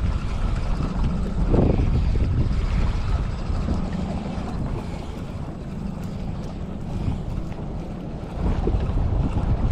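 Wind buffeting the microphone on a small open boat at sea, with water against the hull and a faint steady hum underneath.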